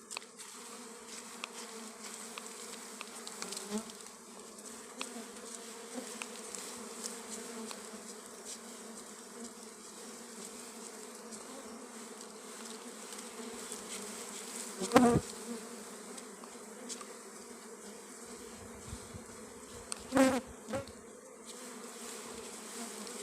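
Swarm of dwarf honey bees buzzing steadily around their disturbed comb, with two brief loud thumps about fifteen and twenty seconds in.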